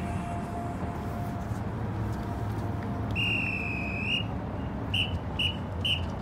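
A marching-band whistle: one long blast of about a second, then four short blasts at an even pace, over steady crowd and stadium noise. This long-then-four-short pattern is a drum major's whistle command to the band.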